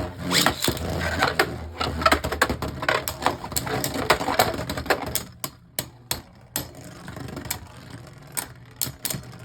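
Spinning Beyblade tops clashing and rattling in a plastic stadium, a rapid run of clicks and knocks. After about five seconds the hits thin out to fewer, quieter clicks.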